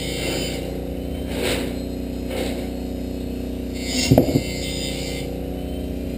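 Wood-Mizer bandsaw-blade sharpener running with a steady hum. Short scrapes and rustles come from a bandsaw blade being handled, with a sharp knock about four seconds in.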